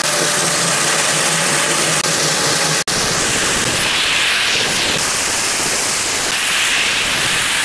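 HMC500 electric core drill with a 500 mm diamond core bit running steadily while cutting through concrete, held within its normal rated load: an even rushing noise that briefly cuts out about three seconds in.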